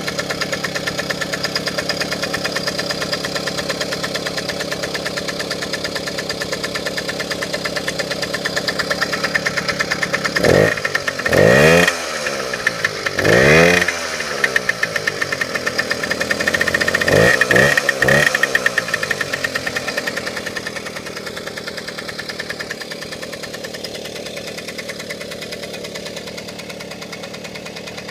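Suzuki JR50's small two-stroke single-cylinder engine idling steadily, its throttle blipped a few times in the middle so the revs rise sharply and fall back to idle.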